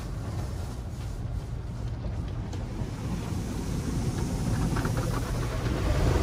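Automatic tunnel car wash heard from inside the car: a steady low noise of the wash machinery and spraying water on the car body, growing louder about halfway through as the spinning cloth brushes reach the car and scrub over its glass.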